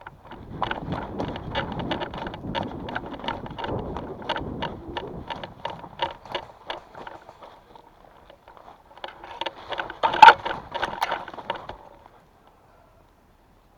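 Footsteps of a player running, about three steps a second, with gear rattling and wind on the microphone. After a short lull there is more shuffling and handling noise, with one loud sharp click about ten seconds in.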